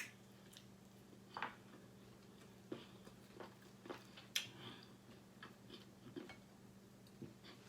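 Faint chewing of chicken, with scattered short mouth clicks and smacks, the sharpest about four seconds in, over a steady low hum.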